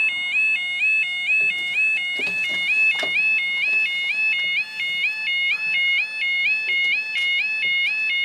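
UK level crossing audible warning alarm (the "yodel" type) sounding continuously: a high electronic two-tone warble stepping rapidly back and forth between two pitches.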